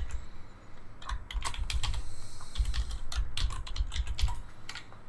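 Typing on a computer keyboard: a quick, irregular run of keystrokes.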